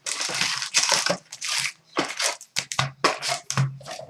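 Card packaging being torn open and crinkled: a long rip, then a run of short crackly rustles as the wrapping is pulled away from a box of hockey cards.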